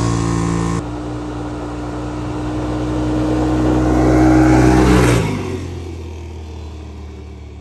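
Stock Yamaha Wolverine RMAX 1000's parallel-twin engine at full throttle on a 0-to-30 mph acceleration run, holding steady revs while wind and tyre noise build. About five seconds in the throttle is let off and the engine falls away as the machine coasts.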